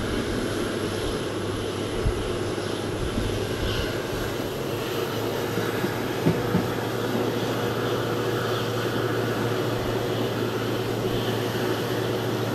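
Indian Railways ICF passenger train running on the track: a steady rumble of wheels on rail with a constant hum. There is a sharp clack about two seconds in and a quick pair of clacks about six seconds in.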